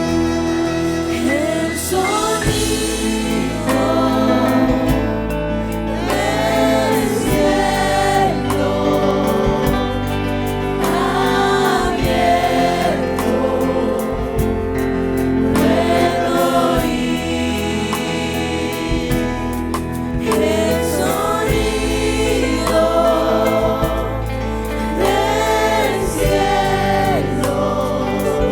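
Gospel worship music: voices singing long sustained phrases together over steady held keyboard chords and bass.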